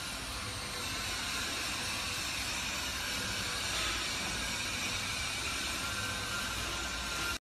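Stainless steel 3D motion drum mixer running, its drum swinging and tumbling: a steady mechanical hiss with a faint steady tone.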